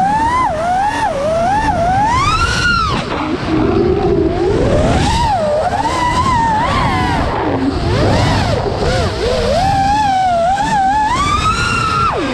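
Brushless motors and propellers of an iFlight Nazgul 5 FPV quadcopter whining, the pitch sweeping up and down rapidly with the throttle. The whine climbs to a high peak twice, about two and a half seconds in and near the end, and drops suddenly each time. A rushing of air sits under it.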